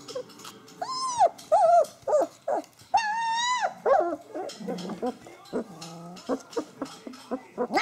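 Three-week-old puppies whining and yelping: two long, high whines about one and three seconds in, with shorter yelps between them, then lower, rougher grumbles through the second half.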